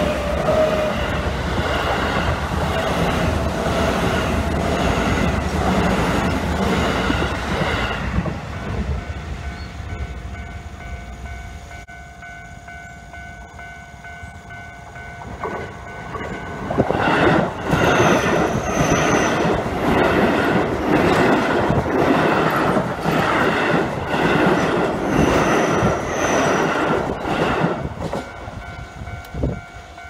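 A Keio Line electric commuter train passes over a level crossing, its wheels clattering rhythmically for the first several seconds before fading away. The crossing alarm goes on ringing with even, repeated clangs, which grow loud again about halfway through as the next train approaches.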